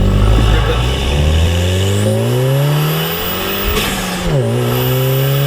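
Volkswagen Golf GTI MK7's turbocharged 2.0-litre four-cylinder, fitted with an Injen cold air intake, accelerating hard: the engine note climbs, drops at a gear change about four seconds in, then climbs again.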